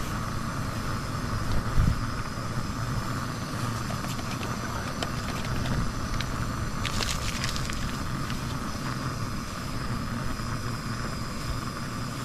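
MSR WindBurner gas canister stove burning steadily under its pot, heating water, a continuous hiss with a low rumble beneath it. A few light clicks come about five and seven seconds in.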